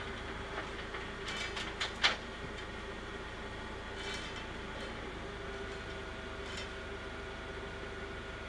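An engine idling steadily. A few sharp metallic clicks and a clank come about one to two seconds in, and a faint steady whine joins a little past halfway.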